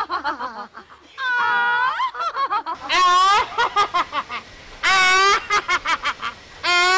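Hollering through cupped hands: four long, drawn-out calls, each followed by a quick run of short laughing "ha" bursts.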